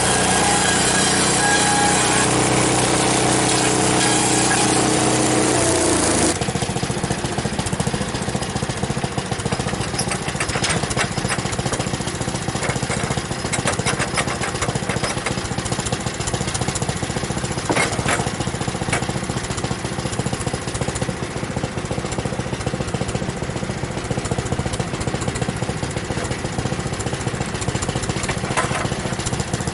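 Small gasoline engine of a Frontier OS23 sawmill running fast and steady, then dropping abruptly to a slower, rougher idle about six seconds in.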